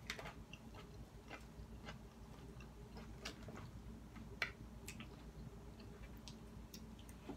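Someone quietly chewing a mouthful of spinach salad, with scattered light clicks, one louder about four and a half seconds in.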